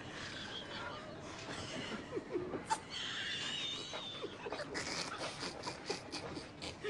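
Stifled, squeaky giggling and snickering, with a high wavering squeal about three seconds in.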